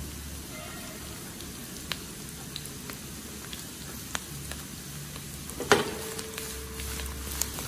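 Slices of spring bamboo shoot sizzling in hot oil in a wok, with scattered small spits and pops as they are pan-fried until lightly golden to drive out their moisture. About three-quarters of the way through there is one loud knock on the wok, followed by a brief ringing.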